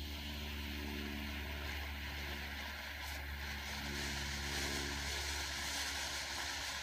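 Cutting Edge Fireworks Mammoth smoke firework hissing steadily as it vents yellow smoke, over a constant low rumble.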